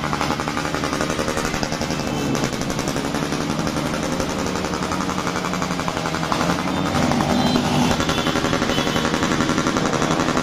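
New Year's Eve noise in the street: a loud, continuous rapid crackle, with steady droning tones underneath, growing a little louder about two-thirds of the way in.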